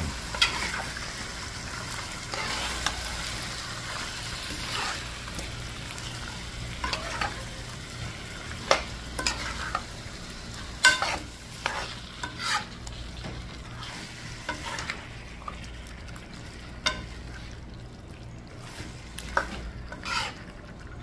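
Duck curry sizzling in a metal pot as a long metal spoon turns the pieces, with scattered scrapes and knocks of the spoon against the pot. The sizzle grows fainter in the second half.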